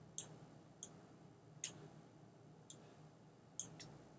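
Faint computer mouse clicks, about six at irregular intervals, as sliders are set in a software window.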